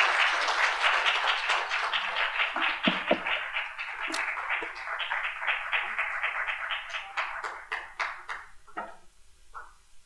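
Audience applauding: dense clapping that thins to a few scattered claps and stops about nine seconds in.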